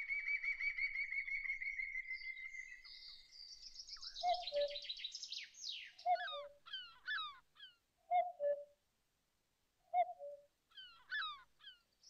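Songbirds singing: a long trill at the start, then rapid high trills and short chirping phrases. Under them a low two-note call, the second note lower, repeats about every two seconds.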